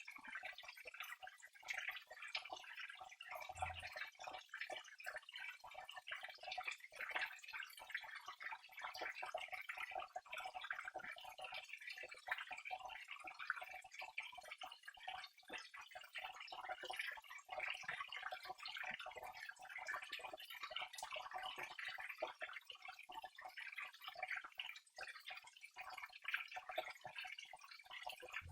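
Water trickling steadily, with a continuous patter of small drips and splashes.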